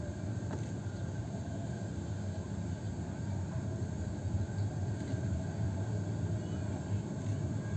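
Steady low rumble with a faint hiss over it, with no distinct event.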